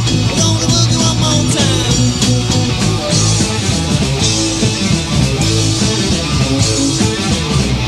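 1970s boogie rock band playing an instrumental break: electric guitar over bass and drums with a driving beat.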